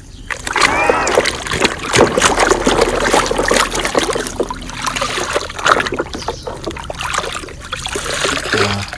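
Water splashing and trickling over a plastic toy vehicle as it is washed, a busy, uneven splatter.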